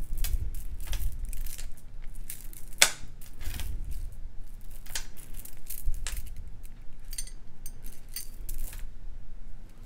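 Beads being picked up, sorted and set down by hand, giving scattered light clicks and clinks with a few soft knocks.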